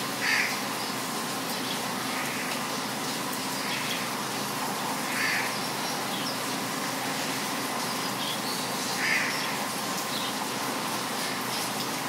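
Heavy rain falling in a steady hiss, with a bird giving short calls every few seconds over it; the loudest calls come near the start, around the middle, and about three-quarters through.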